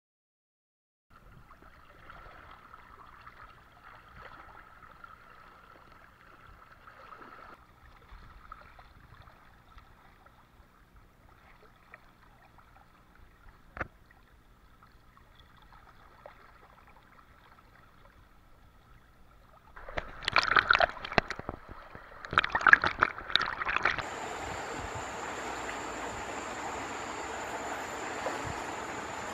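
Muddy floodwater flowing and gurgling, faint at first, with one sharp click partway through. Near the end come several loud splashes, followed by a steady hiss with a thin high whine.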